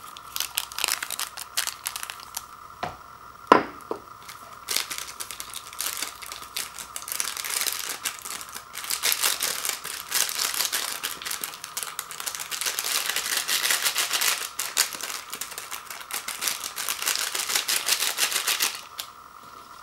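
Foil seasoning packet crinkling and rustling as it is handled and emptied over a ceramic bowl, a dense run of small clicks and scrapes, with one sharp knock about three and a half seconds in. The handling stops about a second before the end.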